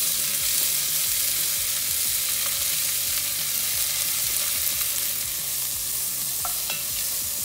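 Chopped vegetables sizzling in hot olive oil in a cast-iron casserole: a steady frying hiss.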